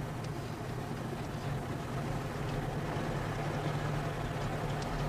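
Car engine running at a steady speed, heard from inside the cabin as a low, even drone.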